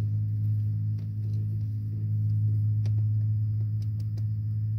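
A steady low hum runs throughout, with a few faint clicks from handling the wire and the red crimp butt connector.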